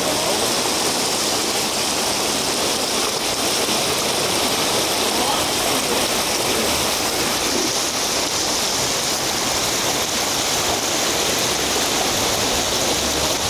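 Floodwater of the overflowing Geul river rushing fast through a street: a steady, loud rush of water.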